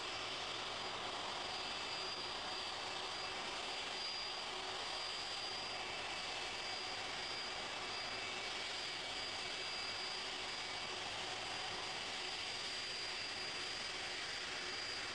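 Boeing 747's jet engines running steadily at low thrust as the airliner taxis, a constant rush with a faint high whine.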